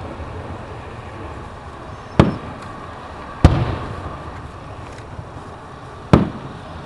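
Aerial fireworks shells bursting: three sharp bangs, about two, three and a half and six seconds in, each trailing off in an echo.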